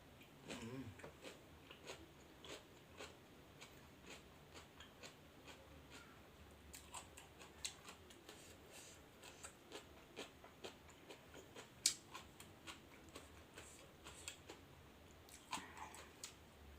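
Quiet chewing and biting of food: soft irregular clicks and crunches, with one sharper click about twelve seconds in.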